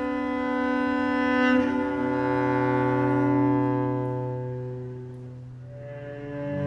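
Cello bowed in long sustained notes: a held drone that moves to a lower note about two seconds in, fades down past the middle, then swells into a louder new note near the end.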